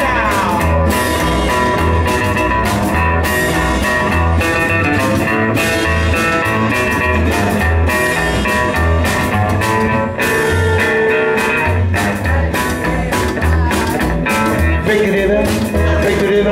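A live band playing blues-tinged rock and roll on upright double bass, archtop electric guitar and acoustic guitar. The bass pulses a steady beat under the guitars.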